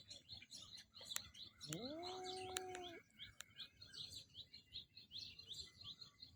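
Faint chirping of many small birds, short high chirps repeating throughout. About two seconds in, a single low drawn-out call rises and then holds steady for about a second, and there are a few light clicks.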